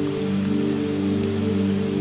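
Slow ambient music of long held low notes, laid over steady rain.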